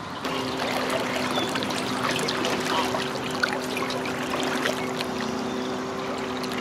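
Endura 30 electric trolling motor running with a steady hum, over water trickling and lapping along the canoe.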